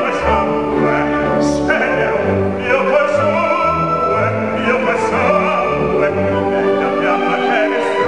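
Operatic baritone singing in full voice with vibrato over an orchestral accompaniment.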